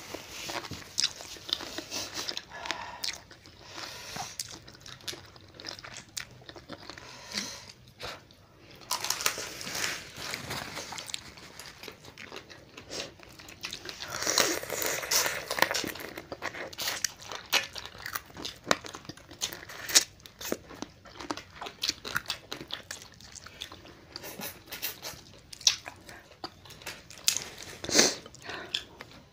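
Close-miked eating: crab shells cracked and crunched between the teeth, with chewing. Many irregular sharp cracks, with longer, louder crunching stretches about nine and fourteen seconds in.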